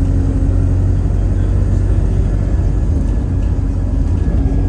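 Inside an Alexander Dennis Enviro200 single-deck bus on the move: steady engine and road noise with a deep rumble and a steady hum that drops away midway and comes back near the end.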